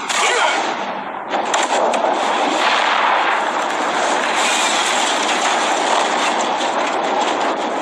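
Cartoon sound effect of thrown torches whooshing through the air, then a stone house catching fire and burning with a loud, steady rush of flames and some crackle.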